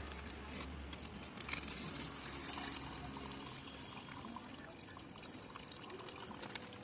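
Faint trickle of water draining out of a tipped clay pot packed with wet coconut husks, running onto the ground.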